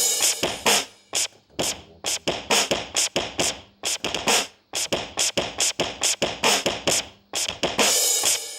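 Hip-hop beat made of short, sharp percussive hits in a quick, uneven rhythm, with a longer hissing stretch near the end.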